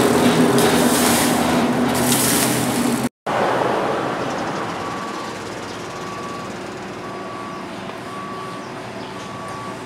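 Water poured onto a hot forged steel billhook blade, hissing and sizzling in surges as it turns to steam, until it cuts off abruptly about three seconds in. After that, a quieter steady background hum with a short high beep repeating about once a second.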